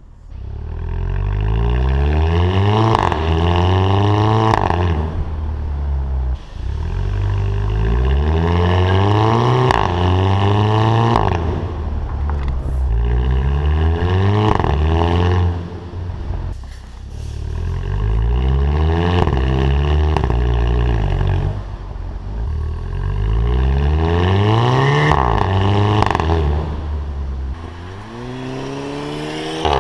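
Volkswagen Beetle 2.0 TSI turbocharged four-cylinder accelerating hard several times. Its engine note climbs and breaks off with a sharp exhaust 'fart' at each DSG upshift before climbing again in the next gear.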